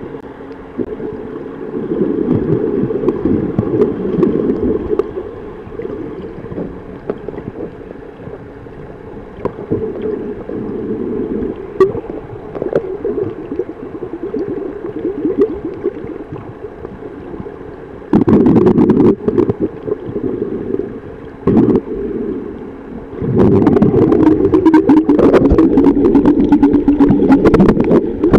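Low, muffled gurgling and rumbling of moving water, irregular and uneven, with several louder surges in the last third.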